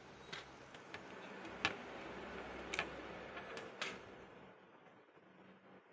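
Plastic clicks and handling rustle as a blade is pulled off the hub of a four-blade plastic propeller fan, a tight fit. There are about six sharp clicks in the first four seconds, then it goes quieter.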